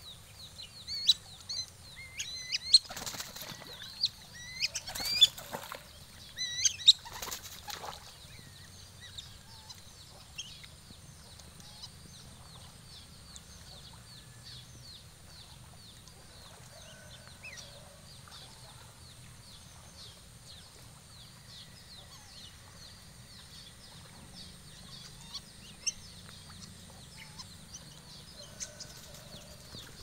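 Netted whistling ducks giving a constant chorus of short, shrill whistles. Several loud bursts of wing-flapping come in the first eight seconds as the birds struggle under the net.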